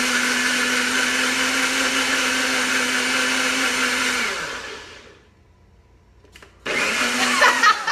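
NutriBullet blender motor running steadily as it mixes egg and cream cheese pancake batter. It winds down and stops about four seconds in, with a falling hum. After a short pause and a click it starts again near the end.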